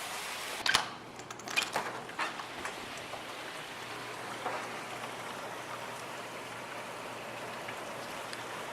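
Steady rain falling, with a few sharp clicks and knocks in the first three seconds, the loudest just under a second in.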